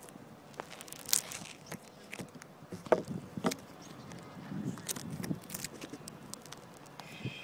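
Scattered footsteps and light knocks on asphalt, with one sharper knock a little under three seconds in and another about half a second later.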